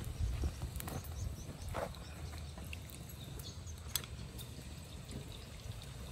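Outdoor ambience: a steady low rumble with a few scattered sharp clicks.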